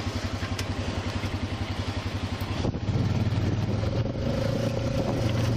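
A vehicle engine running with a rapid, even low pulse. It gets louder about three seconds in, and a faint steady whine comes in near the end.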